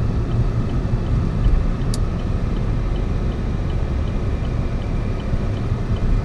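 Car interior noise while driving slowly and turning: a steady low hum of engine and tyre noise, with a brief high tick about two seconds in.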